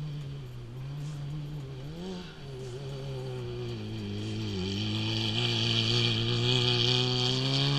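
Off-road race vehicle's engine running hard along a gravel desert track. Its pitch dips briefly twice, and it grows steadily louder as it approaches.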